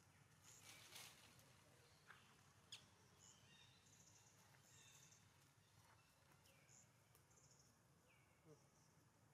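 Near silence: faint outdoor ambience with scattered high chirps and a few short falling whistle-like notes.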